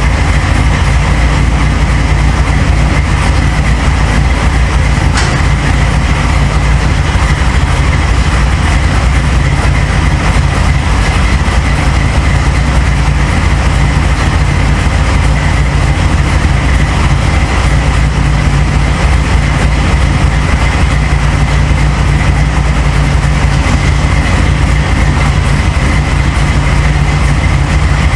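Steady, loud mechanical drone: a low hum with a thin high whine over it, unchanging throughout.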